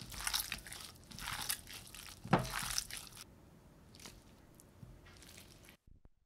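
Raw beef being mixed by a disposable-gloved hand with yukhoe sauce in a glass bowl: irregular wet squishing and crinkling of meat and glove, with a short falling squeak about two and a half seconds in. A few light clicks follow as the meat is scooped out with a spoon, and the sound cuts off abruptly near the end.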